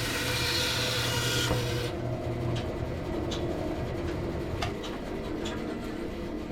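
Delta 14-inch bandsaw cutting a maple block with a dull Powertec blade, a steady rasping hiss over the motor hum. About two seconds in the hiss stops as the blade comes through the cut. The saw runs on with a lower hum and a few light clicks, and the hum fades away about halfway through.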